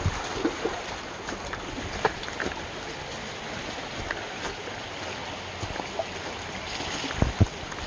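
Rushing creek, swollen from heavy rain, running as a steady hiss, with scattered twig snaps and footsteps through leaf litter and brush. Two low thumps near the end.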